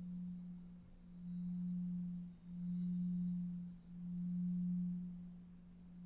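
A low, pure, sustained tone that swells and fades in slow waves about every second and a half: a meditation drone under the practice.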